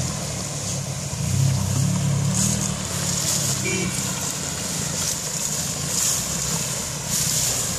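Engine of an off-road SUV running at low revs as it fords a shallow river, with water splashing and hissing around its wheels.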